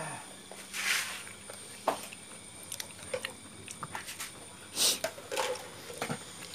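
A kitchen knife knocking now and then on a thick round wooden chopping block, in scattered short knocks, with a couple of brief rustles.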